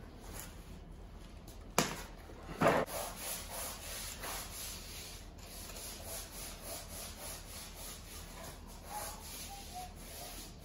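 Hand handling of cables at a battery: a sharp click about two seconds in and a louder knock just after, then quiet, repeated rubbing and scraping.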